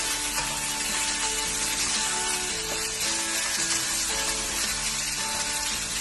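Stir-fry ingredients sizzling and frying in hot oil, a steady dense hiss, with background music underneath.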